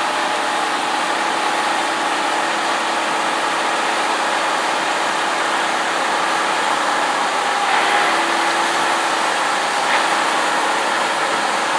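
Steady running noise of large diesel harvest machinery, John Deere combine harvesters at work in soybeans, with a couple of brief louder swells about eight and ten seconds in.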